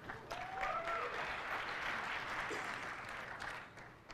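Large audience applauding, with a few cheering whoops in the first second or so; the applause dies away near the end.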